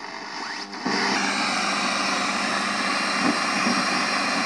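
Maxitronics shortwave regenerative radio kit's loudspeaker: faint wavering tones, then about a second in a sudden jump to loud, steady static hiss with a low hum under it.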